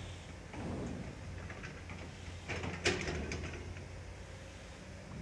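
Street and construction-site background: a steady low hum with scattered clatter and one sharp knock about three seconds in.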